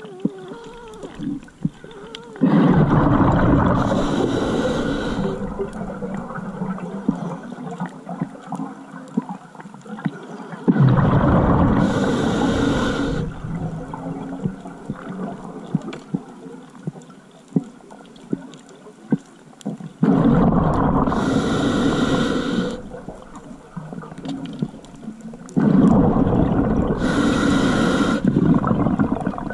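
A diver breathing through a scuba regulator underwater: four long breaths about every eight seconds, each a loud rush of rumbling exhaust bubbles with a hiss partway through.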